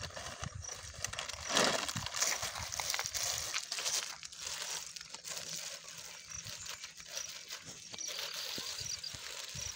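Plastic crinkling and rustling as a plastic-wrapped shoe bag is pulled out of a white plastic courier mailer and handled, loudest about one and a half seconds in.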